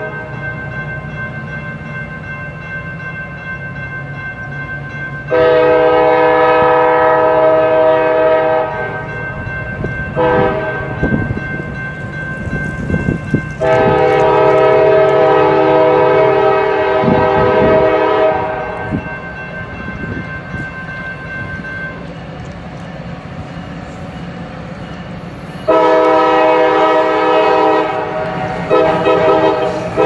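Multi-chime air horn of a CSX freight locomotive set, a GP40-2 with a road slug, sounding long chord blasts for a grade crossing over the low rumble of the approaching diesel train. The blasts come about five seconds in, more weakly around ten seconds, again around fourteen seconds, and a last one near the end.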